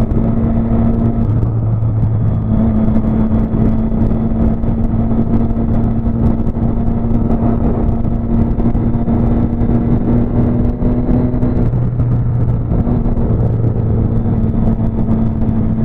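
Motorcycle engine running at a steady cruising speed on the highway, with wind rushing over the microphone. The engine note eases off briefly about three-quarters of the way through, then picks up again.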